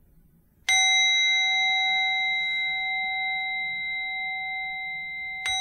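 Buddhist altar bowl bell struck twice, about five seconds apart, each strike ringing on with several steady tones that slowly fade; the second strike is a little softer. These strikes signal the start of the chant.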